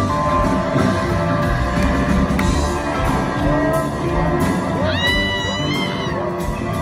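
Southern rock band playing live in a hall: electric guitars, bass and drum kit, heard from the audience. Near the end a high whistle rises and holds for about a second over the music.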